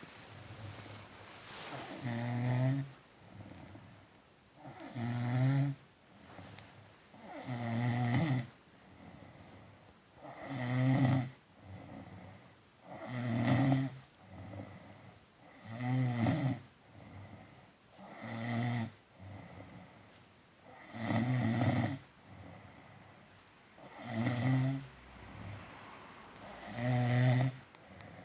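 Snoring in a steady rhythm, about ten snores, one every two and a half to three seconds, with quieter breathing between them.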